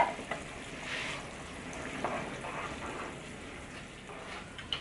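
Tomato sauce simmering in a frying pan over a gas flame: a steady low bubbling hiss, with a few soft stirring sounds.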